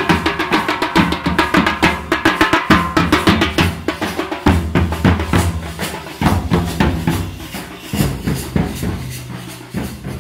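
A street drum band of waist-slung drums beaten with sticks, playing a fast, dense rhythm with deep booming strokes under it. It grows quieter near the end.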